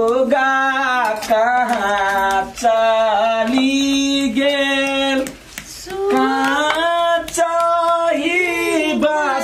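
A woman's voice singing a Chhath devotional folk song in long, wavering notes, with brief breaths about two and a half and five and a half seconds in.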